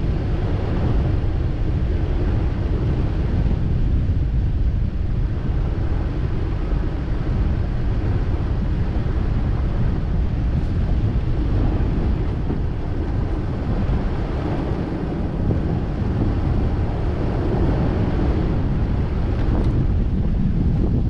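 Wind buffeting the microphone over the steady low rumble of a vehicle driving a dirt road.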